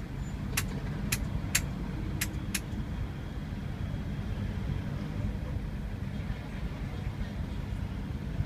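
Bus engine running with a steady low rumble heard from inside the passenger cabin as the bus moves off, with five sharp clicks in the first three seconds.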